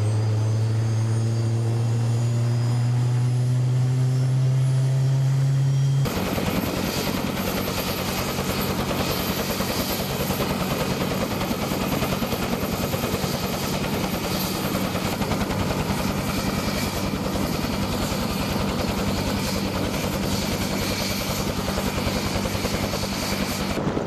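AH-1 Cobra attack helicopter's turbine engines spooling up at start-up, a strong whine that climbs slowly in pitch. About six seconds in, the sound cuts to the helicopter running with its rotor turning: a steady, dense rotor beat over a hum.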